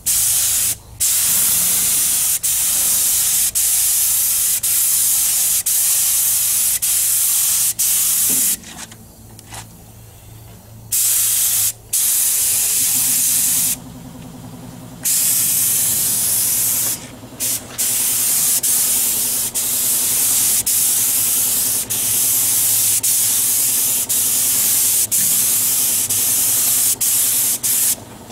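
Compressed-air siphon-feed spray gun spraying paint: a loud, steady hiss of air and atomised paint in long passes, with several short breaks where the trigger is let go, the longest about a third of the way through.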